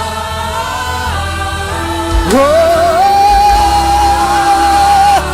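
Live gospel worship music with singers over a band: a sustained chord, then about two seconds in a voice slides up into one long held high note.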